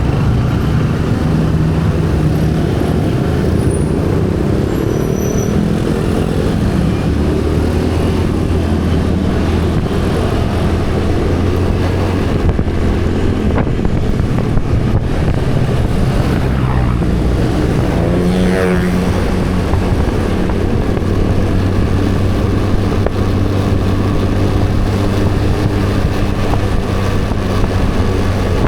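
Road vehicle engine running steadily amid road noise, its pitch shifting now and then, with a brief falling sweep about two-thirds of the way through.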